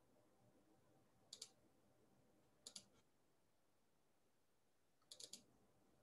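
Faint clicks at a computer, from mouse buttons or keys, against near silence: a pair of clicks about 1.4 s in, another pair near 2.7 s, and a quick run of three a little after 5 s.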